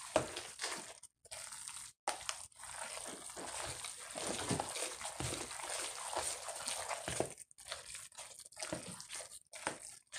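A hand squeezing and kneading moist cornbread dressing in a plastic bowl: irregular wet squishing and crumbly crunching, with brief pauses about one and two seconds in.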